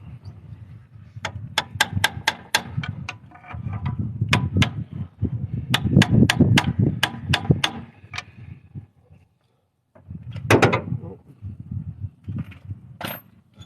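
Metal hand tools working on the exhaust manifold bolts of a car engine: runs of sharp metallic clicks, about four a second, in three bursts, over low rubbing and handling noise, with a heavier metallic knock about ten and a half seconds in.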